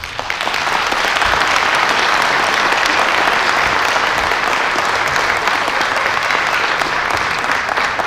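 Audience applauding, breaking out all at once at the end of a performance and then holding steady.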